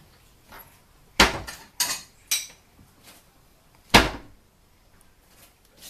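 Four sharp knocks: three in quick succession about a second in, then a single louder one about four seconds in.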